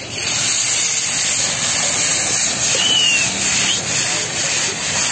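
Fire momos sizzling loudly in a hot wok, a steady hiss that starts abruptly as something is added to the pan.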